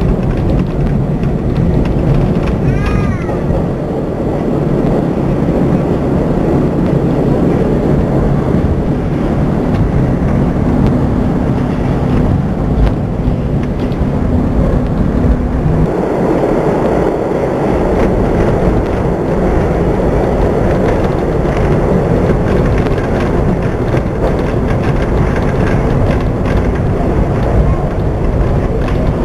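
New York City subway train (N line) running on the rails: a loud, steady rumble and rattle of wheels and car. There is a brief high-pitched squeal about three seconds in, and the rumble changes character about halfway through.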